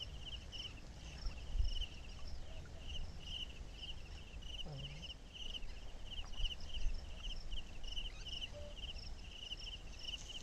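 An insect chirping in short, high, trilled bursts, two or three a second, over a low rumble of outdoor background noise.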